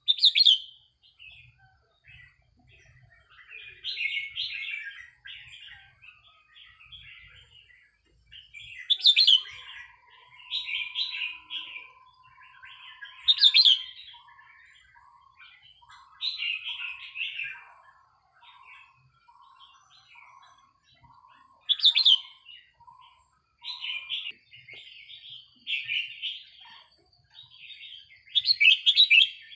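Red-whiskered bulbul singing: short, loud whistled phrases repeated every few seconds. A lower note repeats steadily beneath the song through the middle stretch.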